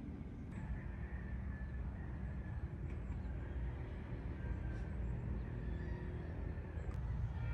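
A low, steady rumble with a faint thin tone and a few light ticks over it.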